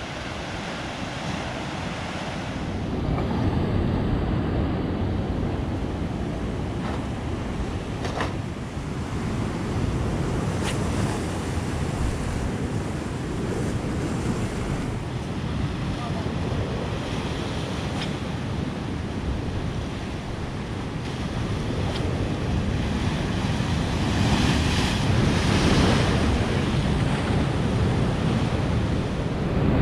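Ocean waves breaking on a beach, with wind buffeting the microphone; the surf swells loudest twice, a few seconds in and again near the end.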